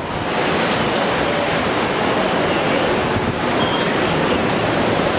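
Hurricane wind and heavy rain: a steady rushing noise that holds at the same level throughout.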